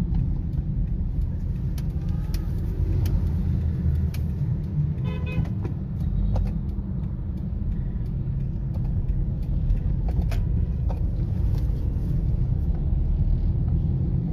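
Toyota Corolla XLI running on LPG, heard from inside the cabin as a steady low engine and road rumble while it moves slowly at low revs, around 1000 rpm. A brief pitched tone, like a distant horn, sounds about five seconds in.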